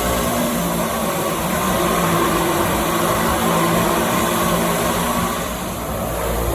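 Drone flying, its motors and propellers making a steady buzzing hum whose pitch shifts slightly now and then.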